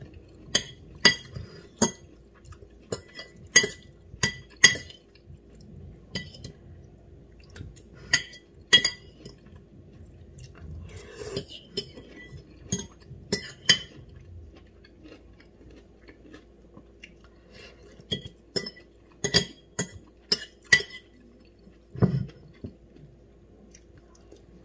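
Metal fork clinking and scraping against a ceramic bowl in irregular clusters of sharp taps, with soft chewing in between.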